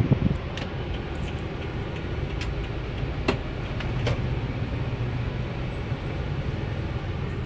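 Car running in slow traffic, heard from inside the cabin: a steady low engine and road rumble, with a few light clicks.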